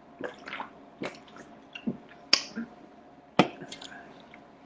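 A person gulping a drink from an aluminium can: wet swallowing and mouth clicks, with three sharper clicks roughly a second apart.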